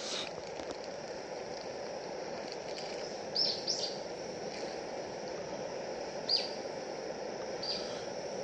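Iwatani Junior Compact cassette-gas burner running under a pot, a steady hiss of the gas flame. A bird chirps four times, short falling notes in the middle and near the end.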